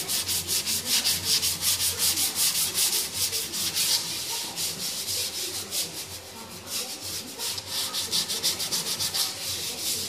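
Hand sanding a Honda XL100S fuel tank with a sandpaper block: rapid back-and-forth scratchy strokes flatting back the old red paint and filler before priming. The strokes ease off about four seconds in, then pick up again.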